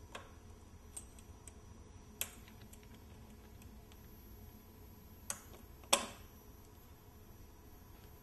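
Scattered sharp clicks and taps of metal parts being handled inside an automated assembly machine's fixture, the loudest a double click about five to six seconds in, over a steady low hum.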